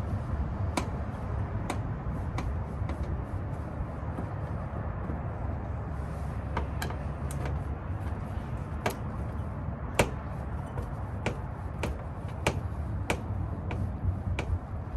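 Irregular small clicks and taps of hand tools and metal clips working on a car door's lock and trim. The loudest is a sharp click about ten seconds in, over a steady low rumble.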